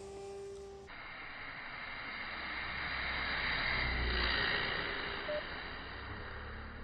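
A passing engine's noise that starts abruptly about a second in, swells to a peak about four seconds in and then fades, with a faint steady whine over it.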